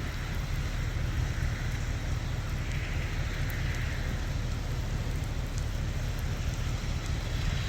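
Heavy rain falling steadily in a storm, over a constant low rumble of wind.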